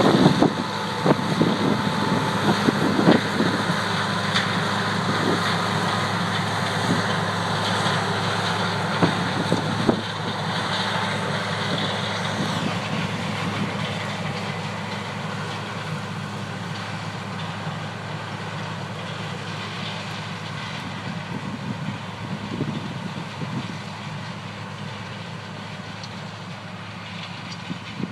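Farm machinery engine running steadily during a silage-corn harvest, gradually getting quieter as it moves away.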